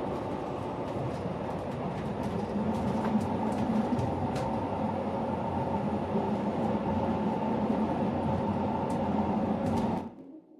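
A Chemins de fer du Jura metre-gauge regional train running: a steady rumble with a low hum and a few light clicks, cutting off suddenly near the end.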